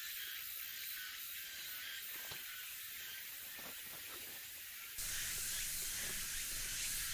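Steady high hiss of summer forest ambience with no distinct events. About five seconds in it becomes louder and fuller, with a low rumble added.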